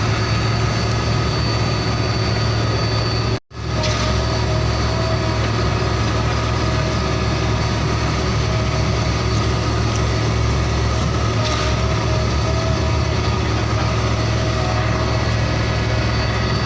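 Truck engine idling steadily, cutting out completely for an instant about three and a half seconds in.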